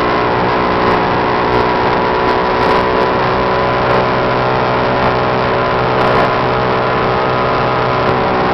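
1949 Evinrude Speeditwin two-stroke twin-cylinder outboard motor running flat out at a steady pitch, loud and screaming, with the boat at planing speed.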